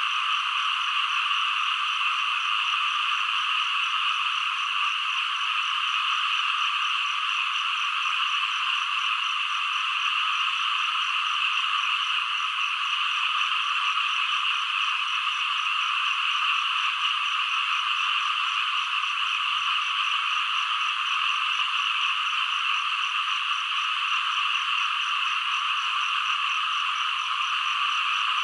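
A dense, steady chorus of many frogs calling at once, an unbroken wall of overlapping croaks and calls.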